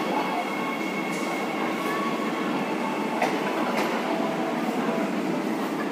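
Soekarno–Hatta airport rail link electric train passing through a station without stopping: steady running noise of wheels on the rails, with two sharp clicks a little past halfway.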